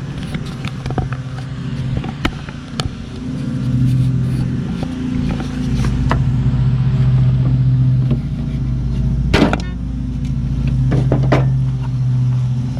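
Lawn tractor engine running steadily underneath, with scattered knocks and clanks as a block of wood wedged by the mower deck pulley is worked loose. There is a louder clatter about nine seconds in and another about two seconds later.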